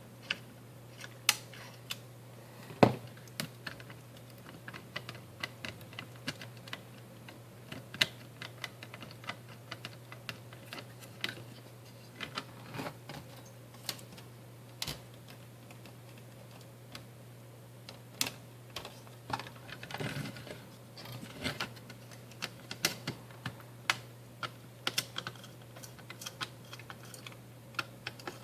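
Irregular small clicks and taps of hand tools and small plastic and metal parts being handled while an HP DV2000 laptop's cooling fan and heatsink are taken off the motherboard, over a steady low hum.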